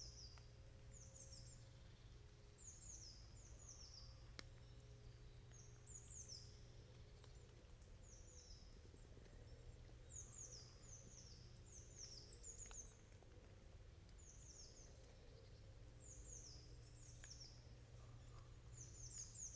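Quiet autumn woodland: a distant leaf blower drones low and steady while rain drips from the trees in a few sharp ticks. Small birds give thin, high, falling call notes in quick twos and threes throughout.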